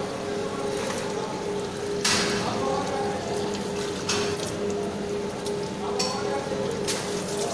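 Metal vessels clinking and water splashing at the foot of a temple idol, over a steady low hum. The loudest splash comes about two seconds in, with smaller clinks and splashes later.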